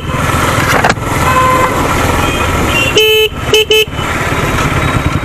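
Steady motorcycle engine and road rumble while riding through town traffic, with a vehicle horn sounding about three seconds in, followed quickly by two short toots.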